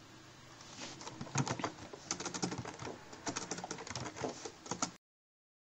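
Computer keyboard keystrokes: a run of light, separate key clicks as the command 'clear' is typed into a Linux terminal. The clicks stop abruptly about five seconds in.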